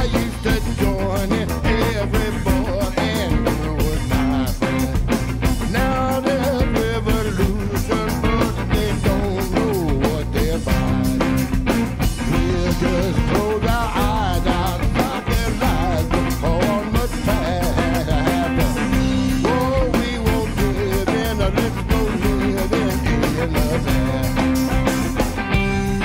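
Live rock band playing: electric guitar, electric bass and drum kit, with a steady beat under a lead line that bends and wavers in pitch.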